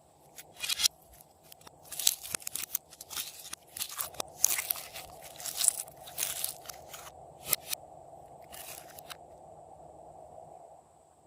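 Slime being worked by hand, giving irregular bursts of crunchy crackling and popping in clusters, then quieting near the end.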